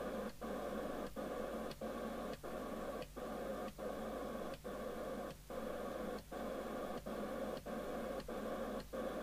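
Receiver hiss and static from a 1981 Barracuda GT868 UK FM CB radio's loudspeaker, on receive with no station heard, as its channel selector is turned step by step. Each channel change briefly mutes the hiss with a click, about every two-thirds of a second.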